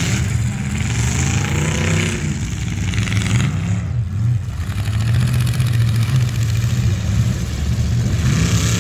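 Several demolition derby cars' engines running loudly and revving, one rising in pitch about two seconds in, with bursts of broad hiss over the engine noise.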